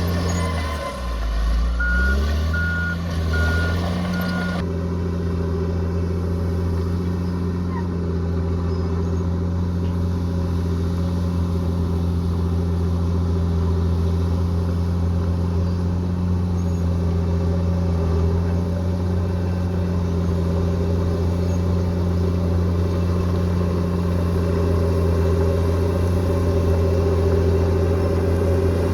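Bulldozer's diesel engine running hard, its pitch dipping and recovering in the first few seconds, then running steadily. Around two to four seconds in, a reversing alarm gives several short, high beeps as the machine backs up.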